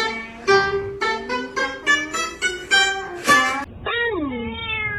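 Guitar picking a quick run of single notes. About four seconds in comes a held pitched sound that slides down in pitch and then levels off.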